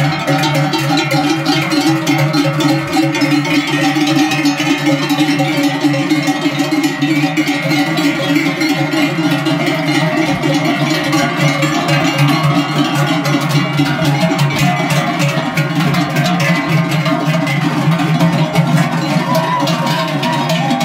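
Many large cowbells on a herd of walking cattle clanging continuously, a dense, unbroken jangle of overlapping bell tones.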